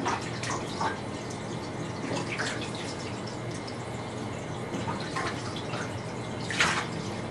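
Water splashing and dripping in a bathtub in a small tiled bathroom, with scattered short splashes and a louder one near the end.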